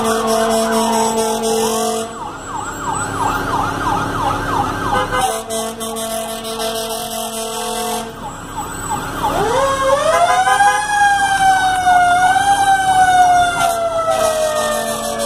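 Sirens of parading fire apparatus: rapid, repeating electronic yelp sweeps, with a steady blaring tone under them for the first two seconds. About nine seconds in, a siren winds up steeply, then slowly winds down in pitch to the end.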